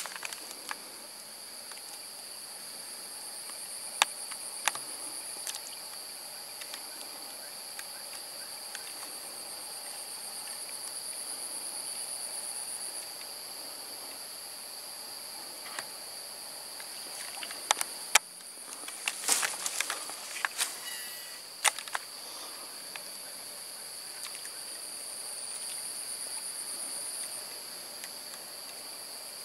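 Insects chirping steadily in two high-pitched bands, with a faster pulsing trill on top that stops about halfway and comes back near the end. Scattered sharp clicks and knocks, most of them in a run a little past the middle.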